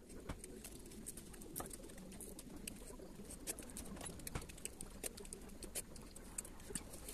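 Eating by hand: irregular small wet clicks and smacks of chewing, with fingers mixing rice on a plate.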